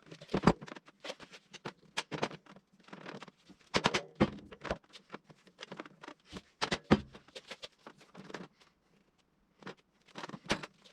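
Scattered clicks, taps and light knocks from hands setting up a chain mortiser and the boards under it, coming at an uneven pace with short pauses; the machine is not running.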